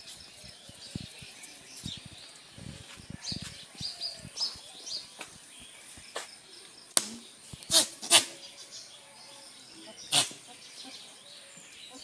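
A few sharp clacks and knocks from goats' hooves scuffing on a paved yard as the goats move about during mating, three of them close together about seven to eight seconds in and the loudest about ten seconds in. Small birds chirp in the first half.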